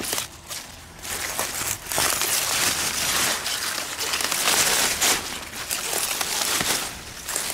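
Large leaves of red radish plants rustling and crackling as a hand pushes through and parts them, with brief quieter pauses just after the start and near the end.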